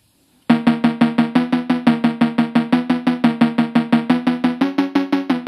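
Background music starting about half a second in: a fast, even pulse of short repeated plucked-sounding notes over a steady low note, shifting up in pitch near the end.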